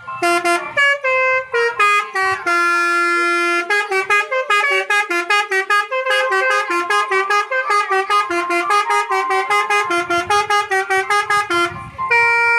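Bus basuri musical air horn playing a fast tune, mostly short clipped notes at about four a second, with one longer held note about three seconds in.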